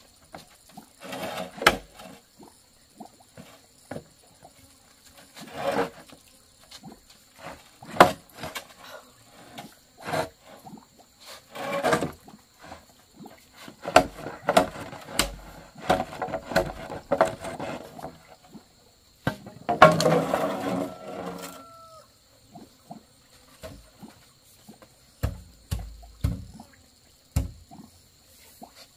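Long green bamboo poles being dragged, scraped and knocked against a concrete yard, in irregular scrapes and knocks every second or two.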